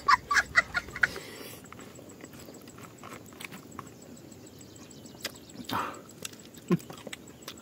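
Eating by hand: fingers gathering rice on a banana leaf, with faint chewing and small clicks and smacks. It opens with a quick run of short high-pitched cries, rising in pitch, that stops about a second in.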